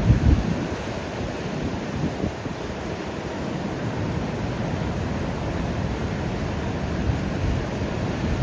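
Ocean waves breaking and washing on a beach, a steady rushing noise with a few heavier low thumps, the strongest right at the start.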